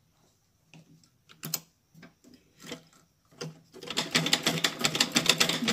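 Sewing machine: a few scattered clicks as it is set up, then about two-thirds of the way in it starts running fast, a rapid, even rattle of stitching. It is topstitching the folded edge of a cloth face mask over the elastic.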